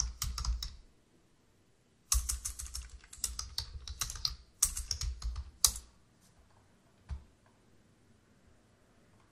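Typing on a computer keyboard: a few keystrokes, a short pause, then a fast run of keystrokes lasting several seconds as a terminal command is typed, and one last single key press after a lull.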